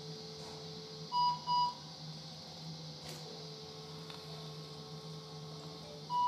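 Electrosurgical unit sounding its steady activation tone in two stretches of a few seconds, as a small bleeder is coagulated with the cautery pencil. A louder pair of short, higher beeps from operating-room equipment sounds about a second in and again at the end.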